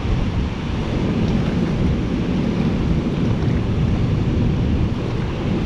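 Water rushing over a river spillway: a loud, steady rushing rumble without breaks.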